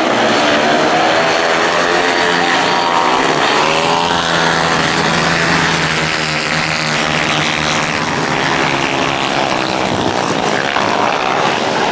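A pack of speedway solo bikes racing, their 500 cc single-cylinder methanol engines running hard together, several engine notes rising and falling over one another as the riders go round the oval.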